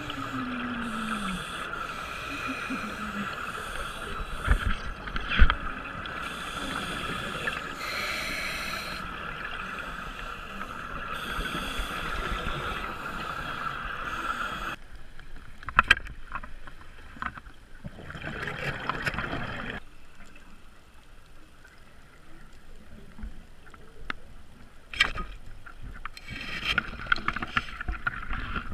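Underwater sound: a boat motor's steady whine carried through the water for about the first half, cutting off abruptly. After that, quieter water sound with bursts of scuba exhaust bubbles and a few sharp clicks.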